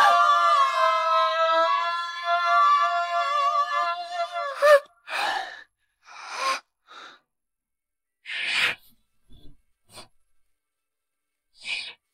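Music of held, steady tones fades out about four and a half seconds in. A string of short, breathy gasps and breaths follows, with silence between them.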